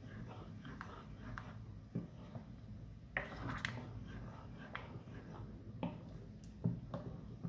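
Plastic ladle stirring a thick cornstarch sauce in a stainless steel pot, with irregular soft knocks and scrapes against the pot, the loudest knocks about three seconds in and near the end.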